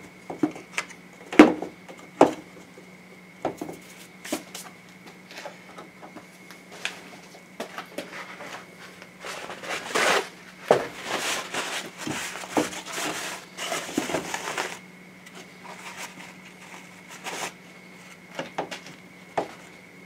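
Hands handling engine parts and a gasket at the workbench: scattered light clicks and knocks, with several seconds of rustling and crinkling in the middle, over a faint steady hum.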